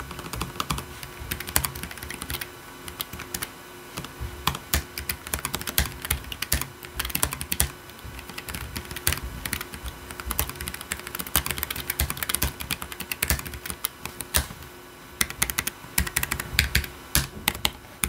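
Typing on a Keychron K7 low-profile mechanical keyboard with red linear switches: a rapid, continuous run of keystroke clacks, with a short pause about three-quarters of the way through.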